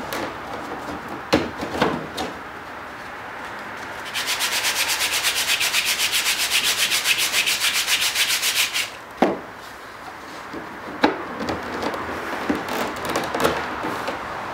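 Hand sanding of cedar strips with a sandpaper block: quick, even back-and-forth strokes, several a second, for about four and a half seconds in the middle. A few sharp knocks and clicks come before and after it.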